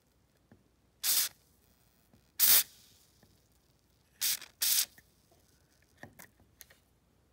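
Aerosol can of white lithium grease sprayed through its straw onto a squeaky door hinge in four short hissing bursts, the last two close together.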